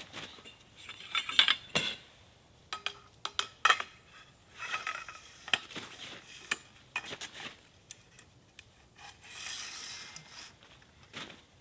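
Metal gear being handled: irregular clinks, rattles and scrapes, a few of the clinks ringing briefly.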